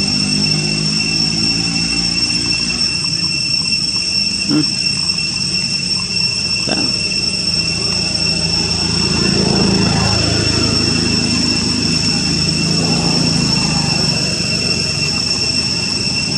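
Steady high-pitched insect drone over a low engine rumble, with two short rising squeaks about four and a half and seven seconds in.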